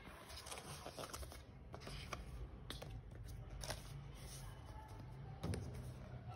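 White cardboard packaging being handled: the folded paper sleeve of a watch band box rustling and scraping as it is opened, with scattered light taps and clicks. The sharpest click comes about five and a half seconds in.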